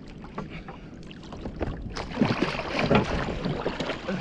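Water splashing and sloshing against a fishing kayak, with scattered clicks and knocks. The splashing grows louder about halfway through.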